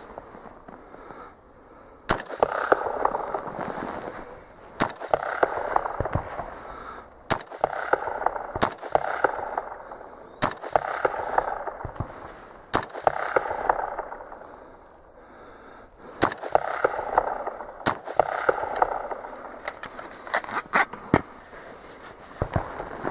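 Oberland Arms OA-15 AR-15-style rifle fired about a dozen times in slow semi-automatic fire, single shots a second or two apart, each followed by about a second of echo. There is a pause of about three seconds near the middle.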